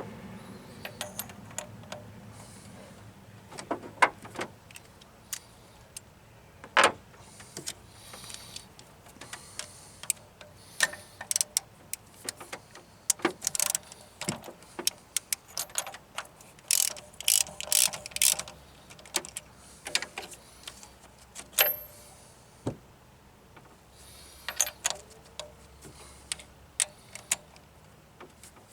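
Hand tools and metal fuel-system fittings clicking, tapping and scraping during hands-on work: scattered sharp knocks, the loudest about 4, 7 and 21 seconds in, with quick runs of clicks in between.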